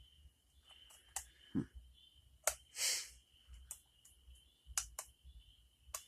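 Lock picking in Thumper's Bangkok Nights lock: a handful of sharp metal clicks, irregularly spaced, from the pick and tension wrench working the pins, with a short rustle about three seconds in.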